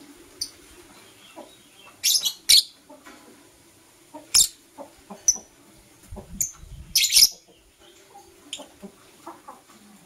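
Lovebirds giving short, shrill, high chirps at irregular moments, the loudest a quick cluster about seven seconds in, with a few soft low knocks among them.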